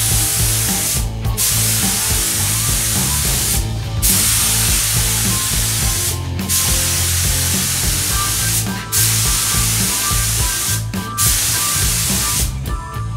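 Cheap gravity-fed compressed-air spray gun hissing as it sprays paint onto a car bonnet. It runs in passes of about two to three seconds, with a brief break each time the trigger is let off between strokes.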